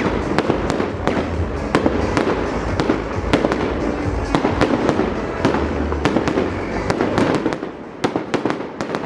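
Fireworks display: a dense run of sharp bangs and crackles over a continuous rumble of bursting shells, thinning briefly near the end.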